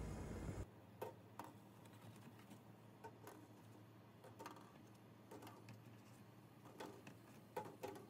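Eggs being set one at a time into a stainless steel pot of water, each giving a light click against the pot, about ten irregular clicks over a faint low hum. A brief burst of outdoor noise cuts off about half a second in.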